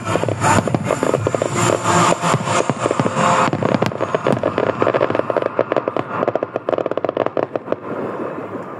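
Aerial fireworks finale: a dense barrage of shell bursts and crackling. About three and a half seconds in, it gives way to rapid crackles that thin out and fade near the end.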